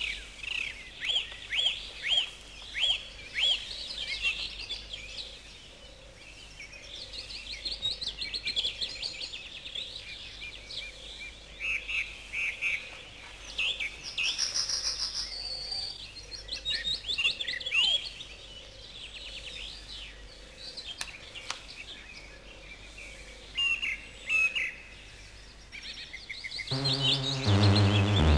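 Songbirds chirping and twittering, with a whistled call repeated about twice a second at first. Music comes in near the end.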